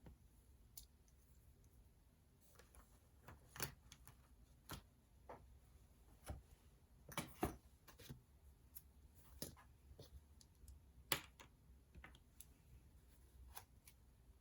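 Quiet room with irregular sharp clicks and taps from desk work, a dozen or so spread unevenly, the loudest about eleven seconds in.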